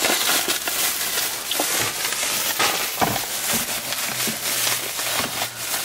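Thin plastic grocery bags rustling and crinkling as a hand rummages through them.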